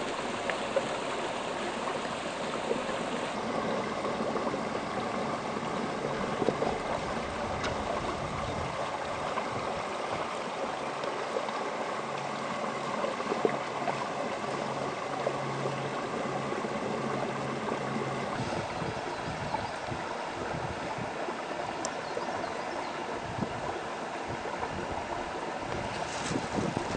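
Small, shallow brook running steadily over a mud and sand bed, an even rush of flowing water.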